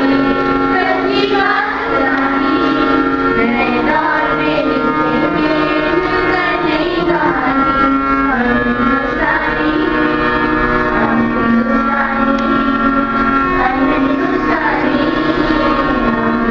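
Group of schoolgirls singing a song together into microphones, amplified, over steadily held accompanying notes.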